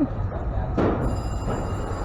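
Steady low rumble of an idling truck engine, with a brief whoosh just under a second in. About a second in, background music with high, sustained tones comes in.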